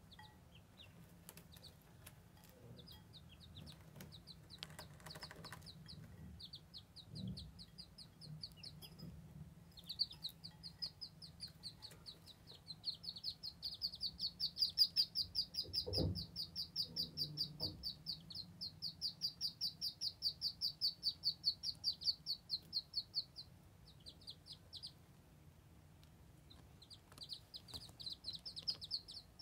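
Ducklings peeping: a fast, even series of short high peeps, about four a second, swelling in the middle, pausing for a few seconds and starting again near the end. A soft bump about halfway through.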